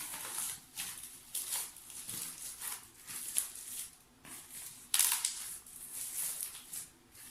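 Packaging rustling and crinkling as an item is unwrapped by hand: a run of irregular scratchy rustles, with a louder one about five seconds in.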